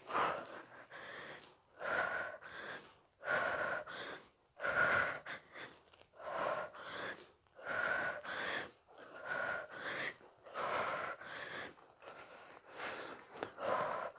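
A woman breathing hard under exertion during a set of seated knee tucks on a bench: a steady run of about ten heavy breaths, one every second and a half or so.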